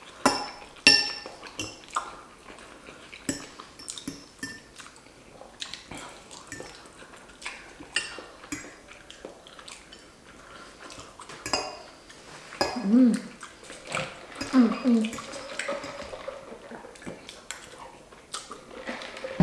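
Metal forks clinking and scraping against bowls as pasta is twirled and scooped up, in scattered short, sharp clicks.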